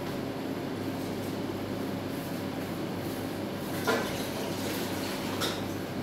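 Samsung microwave oven running with a steady hum while it heats a bowl of lemon water. Two short knocks cut in, a louder one about four seconds in and a softer one a second and a half later.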